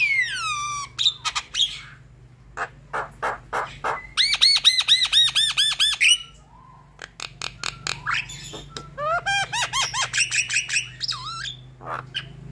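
Javan myna in full song: a varied run of sharp clicks and chatter, a falling whistle at the start, and two fast series of repeated whistled notes, about four to six seconds in and again around ten seconds.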